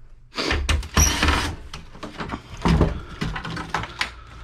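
Computer parts and casing being handled: several sliding, scraping noises with small knocks and clicks, the longest about half a second in.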